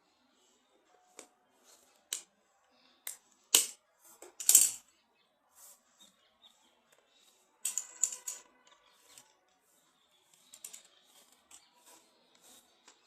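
Small plastic and cardboard items of a phone's packaging being handled: scattered clicks, taps and rustles. The two loudest come about three and a half and four and a half seconds in, and a brief clatter with a faint ringing near eight seconds.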